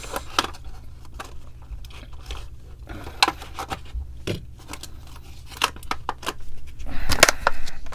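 Clear plastic blister pack crackling and clicking as it is pried open by hand to free a 1:64 diecast car, in irregular snaps that grow busier and louder near the end. A steady low hum runs underneath.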